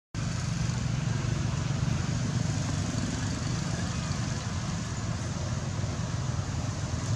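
Steady low rumble of road traffic, with a brief gap at the very start.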